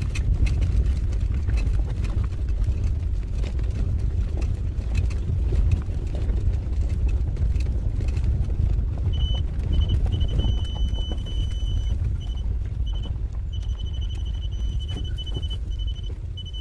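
Car driving over a rough gravel track: a steady low rumble of tyres and suspension with scattered knocks and rattles from the bumps. About halfway through, a high, on-and-off beeping tone joins in.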